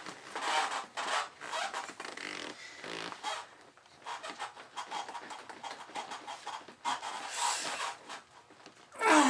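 Rubber intake boots squeaking and rubbing in irregular bursts as the carburetor bank is forced onto them. Near the end a loud strained groan from the effort.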